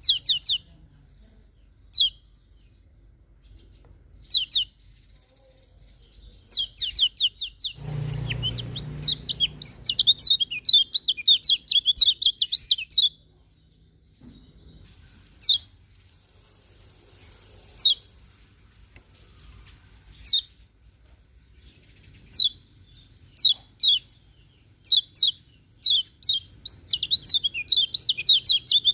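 Kecial kuning (a white-eye) singing: single sharp, down-slurred chirps a couple of seconds apart, breaking twice into fast chattering runs of song, first at about a quarter of the way in and again near the end. A brief low rumble comes about eight seconds in.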